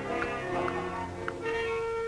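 Instrumental cartoon soundtrack music with sustained notes; a long held note comes in about three quarters of the way through.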